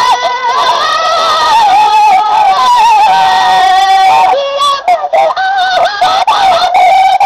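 Sindhi molood, devotional singing: a voice holding long, ornamented notes that waver and bend in pitch, with a short break in the line about four and a half seconds in.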